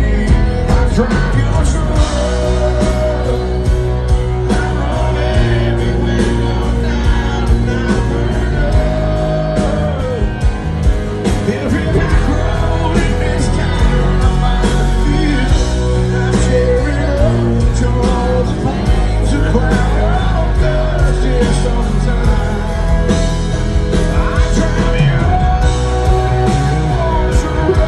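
Live country band playing, with acoustic and electric guitars and drums, and singing over it.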